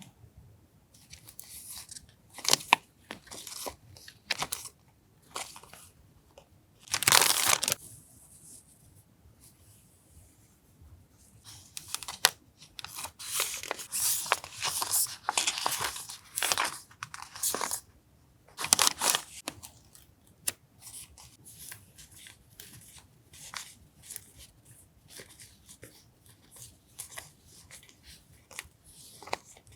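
Paper stationery and its packaging being handled and unpacked: irregular rustling, crinkling and tearing. The loudest bursts come about 7 and 19 seconds in, with a longer stretch of rustling between them and light taps and ticks toward the end.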